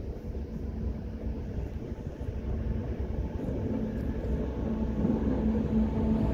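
NS 1700-class electric locomotive pulling a train of intercity coaches as it approaches: a low rumble that grows steadily louder, with a steady hum coming in about halfway.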